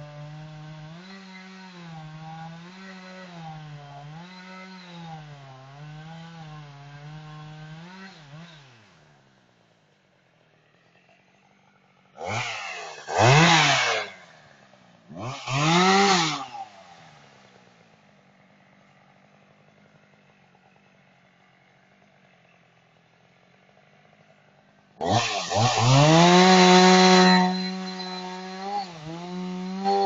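Chainsaw running with its pitch wavering up and down for about eight seconds, then dropping back to a faint idle. It gives two short revs and idles again, and near the end revs high and loud for a couple of seconds before easing off with a few blips of the throttle.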